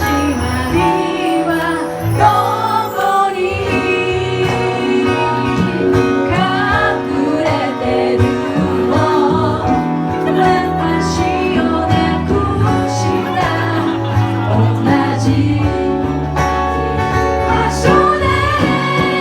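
Live band music: a singer's voice over guitar and sustained bass notes.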